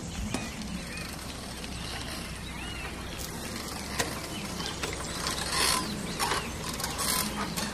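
Bicycle freewheel hubs ticking as several riders coast past, over a light background hiss. Twice in the second half there is a louder rush of hiss.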